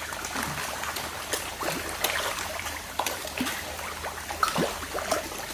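Water trickling in a koi pond, with many small scattered splashes and slurps from koi taking food at the surface.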